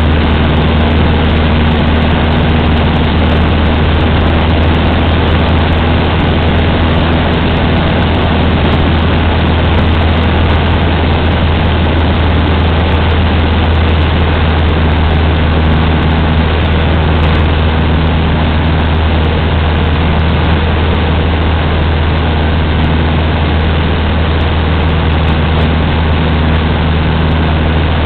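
Cessna 150's four-cylinder Continental O-200 engine and propeller at a steady power setting in flight, heard as a loud, unchanging low drone over dense wind and airframe noise inside the cabin.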